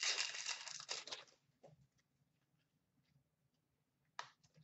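Wrapper of an Upper Deck hockey card pack crinkling and tearing as it is opened, for about the first second, followed by a faint tap or two as the cards are handled.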